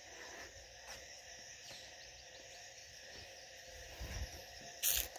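Faint, steady calling of crickets and frogs in the background. There are a few soft low thumps about four seconds in, and a short, sharp noise burst near the end.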